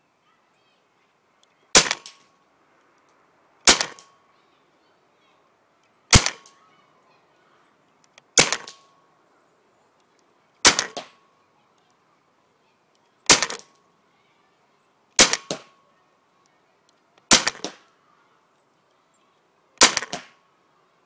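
RAP4 T68 paintball marker running on a high-pressure air tank, fired nine single shots about two seconds apart, each a sharp pop with a brief tail.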